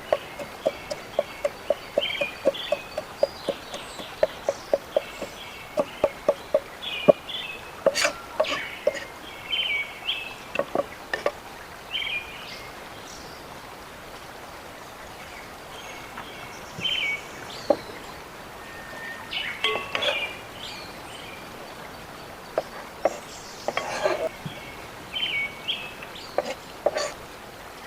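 Birds chirping steadily. Over the first several seconds comes a quick, even run of light taps, about four to five a second, and scattered knocks follow later.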